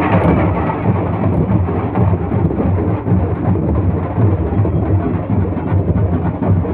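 Dhol drums and other ceremonial drums being played loudly and continuously, overloading the microphone into a dense, distorted, rumbling din.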